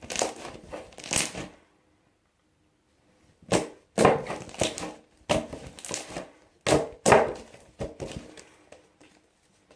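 Soft slime being squished and kneaded by hand: a run of wet, crackly squishes, a short pause, then about eight sharp squishes in quick succession.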